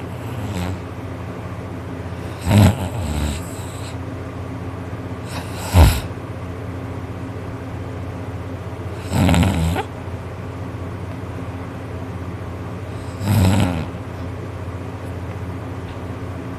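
A man snoring loudly in his sleep, one harsh snore about every three to four seconds, four in all, over a steady low hum.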